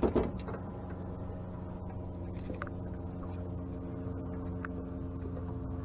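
A short thump right at the start as a just-caught crappie is swung in against the boat, then the steady hum of a Minn Kota electric trolling motor with a few faint clicks as the fish is handled.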